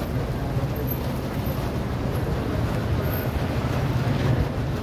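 Steady city road traffic noise, a low rumble, as a motorcycle rides past close by.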